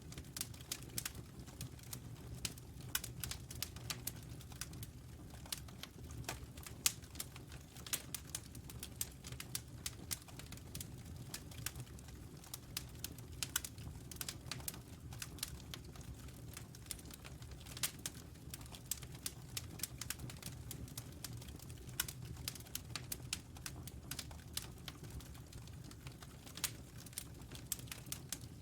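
Wood fire crackling: irregular small snaps and pops, a few louder, over a steady low rumble.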